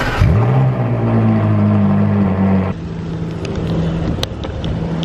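Ferrari 458's V8 cold start: the engine catches and flares sharply up in revs, then holds a loud, steady high idle. About two and a half seconds in the sound drops abruptly to a quieter, steady engine tone.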